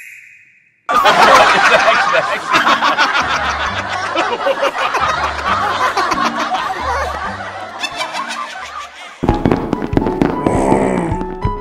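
Comedy sound effect of loud group laughter with a crackly, clapping-like texture, starting about a second in over background music, which takes over with a new tune near the end.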